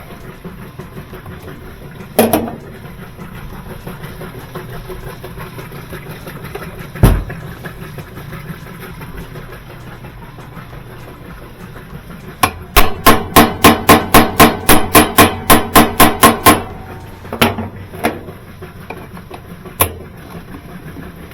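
Hammer blows on a stuck part of a washing machine that won't come free. There are single strikes at first, then a fast run of about four blows a second for some four seconds, then a few more scattered blows.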